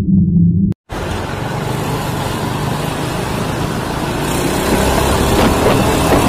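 Motorcycle riding in city traffic, heard from the rider's camera: a steady rush of wind and road noise with the engine underneath, slowly growing louder. Before that, a low intro tone cuts off within the first second.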